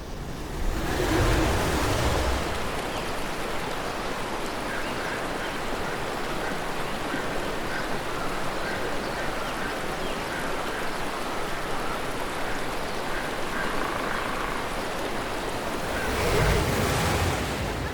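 Steady wash of ocean surf, swelling louder about a second in and again near the end.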